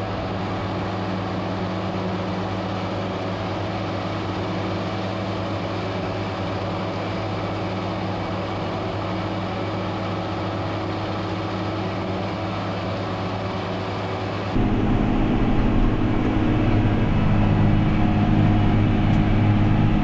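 Tractor pulling a mower-conditioner through heavy triticale, the engine under load with a steady, even drone. About three-quarters of the way through the sound jumps to a louder, deeper drone.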